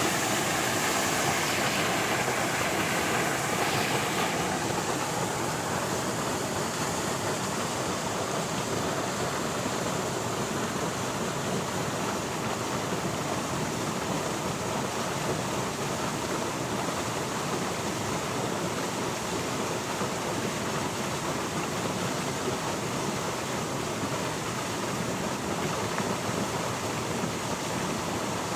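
River water flowing with a steady rushing noise. For the first four seconds a faint engine hum runs underneath, then stops.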